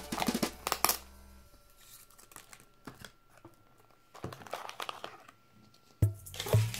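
A hollow plastic surprise-egg capsule being pried open by hand, with a quick run of sharp plastic clicks and cracks in the first second. Later the crumpled tissue-paper packing inside crinkles as it is pulled out. Background music stops early on and comes back in near the end.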